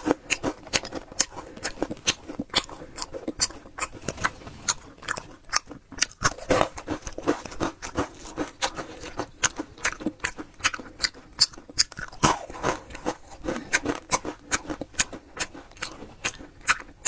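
Frozen malt chocolate balls crunching and clicking, several crisp cracks a second at an uneven pace, as they are chewed and knocked against chunks of ice in a bowl. The balls are cracked through from the cold.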